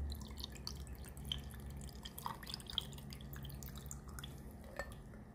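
Liquid poured from a glass jar over ice cubes in a drinking glass: a faint trickling pour with many small scattered clicks.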